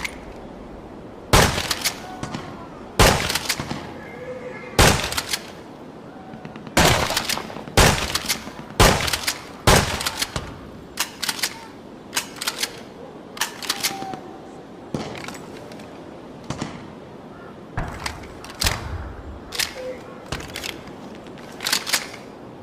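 A gun firing single shots one after another at an uneven pace, about fifteen in all, each a sharp crack with a short echoing tail; the shots in the first half are louder than the later ones.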